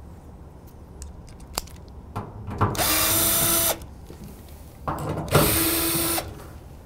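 Cordless drill/driver with a T30 Torx bit backing out the steel side-panel fasteners of an equipment cabinet. There are a few small clicks, then two short runs of the motor, each under a second and about two seconds apart, each spinning up briefly to a steady whine.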